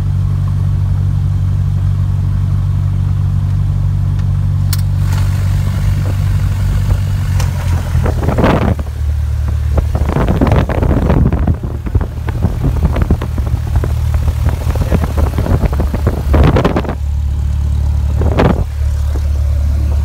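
Cessna 182's six-cylinder piston engine running steadily at taxi power, heard from inside the cabin as a loud, low drone whose pitch drops slightly about seven seconds in. From about eight to seventeen seconds, and once more near the end, loud rustling and bumping from the phone being handled covers it.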